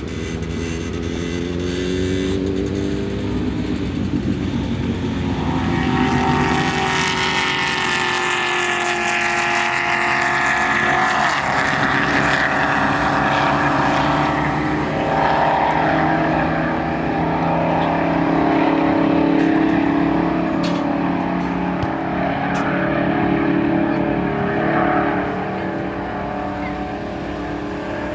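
High-performance car at full throttle on a standing-mile top-speed run, its engine note climbing as it accelerates, then dropping in pitch as it passes about ten seconds in. It carries on at a lower, steady drone before fading near the end.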